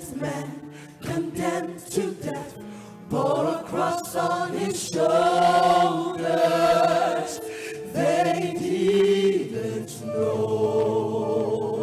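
Gospel choir singing: short sung phrases, then long held notes in harmony.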